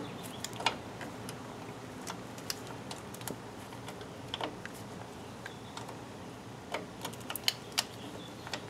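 Scattered, irregular light clicks and taps of drum brake hardware, the star adjuster and its springs, being worked into place by hand.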